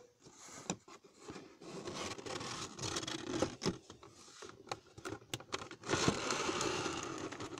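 Cardboard packaging scraping and rustling as an inner cardboard piece is slid out of a figure box by hand, with small clicks and taps; the scraping swells twice, about two seconds in and again about six seconds in.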